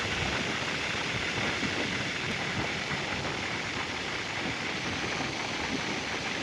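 Climate-control blower fan of a 2003 Mercedes G500 blowing air steadily through the dash vents, heard inside the cabin with the engine running, the system just switched over to heat.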